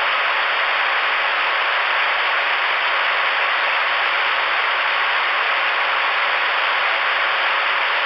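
Steady static hiss from a CRE 8900 ten-meter radio's speaker on an open channel with no signal coming through, with a faint steady high tone under the hiss.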